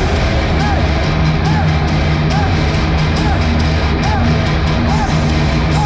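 Live heavy metal band playing in a stadium, with distorted electric guitars, bass and drums. A short guitar figure repeats about once a second over steady bass notes and regular cymbal hits.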